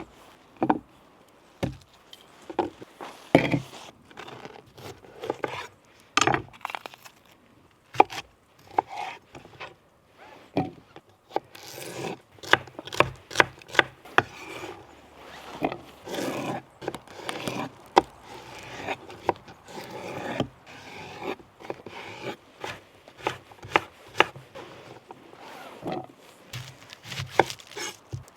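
Knife chopping vegetables on a cutting board: a string of irregular knocks with some scraping, coming faster in a quick run of chops in the middle.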